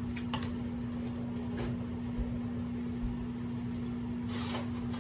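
Microwave oven running with a steady hum, heating macaroni and cheese. A brief noisy rustle comes about four and a half seconds in.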